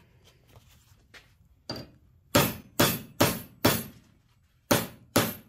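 Ball peen hammer striking a steel bar clamped in a bench vise, bending it over to about 45 degrees. After one lighter tap come four quick, ringing metal blows about two a second, a short pause, and two more blows near the end.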